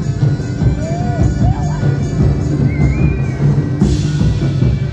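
Folk dance music with a steady drone underneath and a beat of about three strokes a second. The beat drops out near the end, where a brighter splash of sound comes in.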